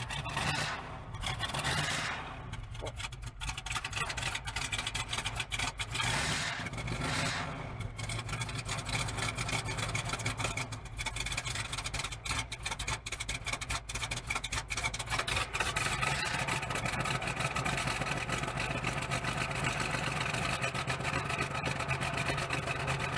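The engine of a 1981–82 Tioga motorhome runs steadily, with a noise that the crew suspects comes from the water pump or its pulley.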